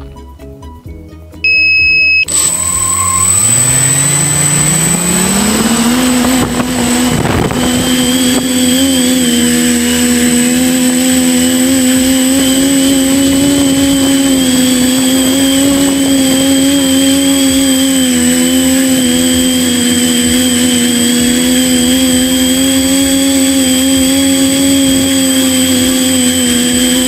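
A short steady electronic beep, then a quadcopter's electric motors spinning up, the whine rising in pitch over about four seconds and settling into a loud steady propeller drone as it flies.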